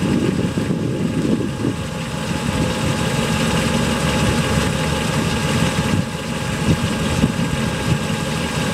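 1962 Chevrolet Impala's 283 small-block V8 idling with a steady low rumble.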